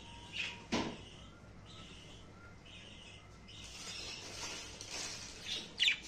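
Budgerigar chirping in short, high calls, with a sharp click just under a second in and a louder falling call near the end.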